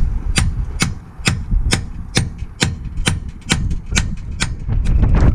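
A hammer striking metal in a steady, even rhythm, about two blows a second, each a sharp ringing clang. The work is on a seized locking wheel bolt.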